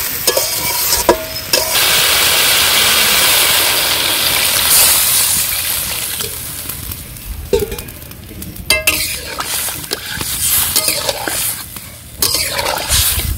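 Metal spatula scraping and stirring vegetables frying in oil in an iron karahi, then water poured into the hot pan: a loud sizzling hiss starting about two seconds in, fading slowly over the following seconds while the spatula clinks and stirs through the liquid.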